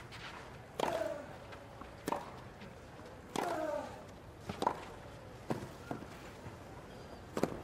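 Tennis rally on a clay court: a string of sharp racket strikes on the ball, about one every second and a quarter. A player gives a short grunt with two of the hits.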